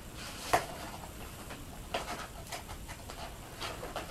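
A few soft clicks and light rustles, about a second apart, of craft-supply packaging being handled and opened.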